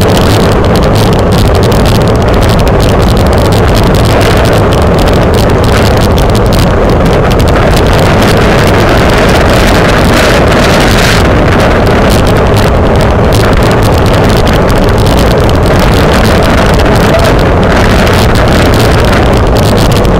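Loud, steady wind buffeting on the microphone of a bicycle-mounted camera while the bike is ridden at race speed.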